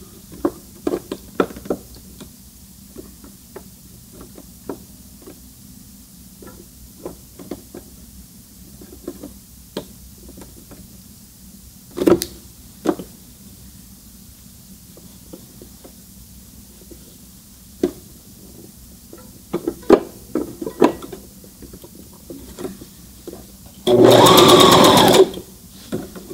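Scattered light clicks and taps, then about 24 seconds in the Brother ST371HD sewing machine runs in one short burst of about a second and a half, stitching a straight stitch through two layers of knit fabric.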